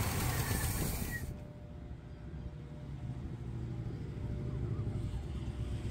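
1966 Oldsmobile Toronado's 425 V8 running with the hood open, a steady low engine note that drops in level a little over a second in and then carries on more quietly.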